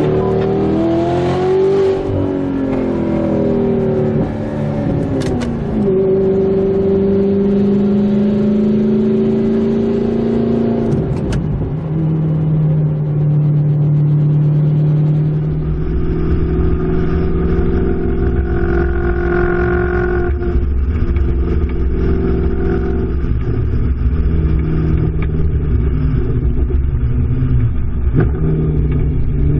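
Car engines revving and pulling through the gears, their pitch rising and falling, then settling into a steady drone. From about halfway a heavy low rumble of wind buffeting the microphone lies under the engine.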